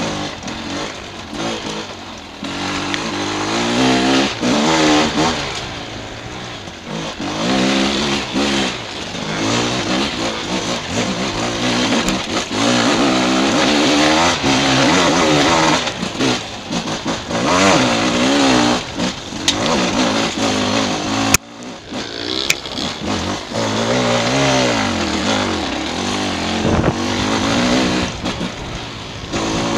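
Dirt bike engine revving up and down, pitch rising and falling again and again as the throttle is worked on rough single track, with a hiss of wind and trail noise on the helmet microphone. A sharp click comes about two-thirds of the way through.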